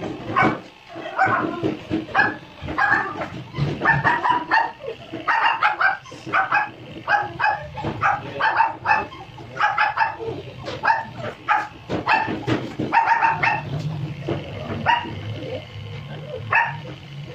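A Shih Tzu barks and yips in a rapid run of short barks, about two or three a second, while it is being groomed. The barking stops for a moment about three-quarters of the way through, and an electric grooming clipper starts a steady low hum. One more bark comes over the hum near the end.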